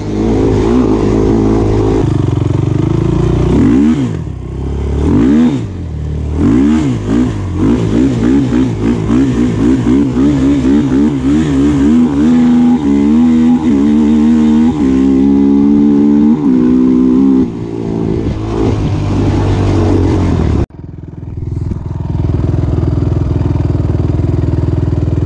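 Honda TRX 450R quad's single-cylinder four-stroke engine revving hard while riding, its pitch climbing and dropping again and again through the gear changes. About 20 seconds in it cuts suddenly to a steady idle.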